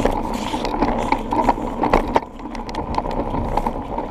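Strider balance bike rolling along a concrete sidewalk: a steady rumble from the small wheels with frequent clicks and rattles, easing briefly about two seconds in.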